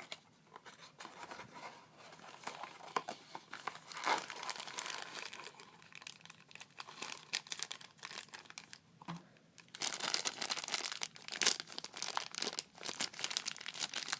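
Packaging of a collectible mini-figure blind box being torn open and crinkled by hand, irregular crackling that gets louder and busier near the end.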